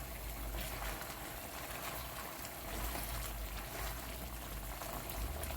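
Chicken boiling in its jerk sauce in a pot: a steady bubbling hiss with faint small pops.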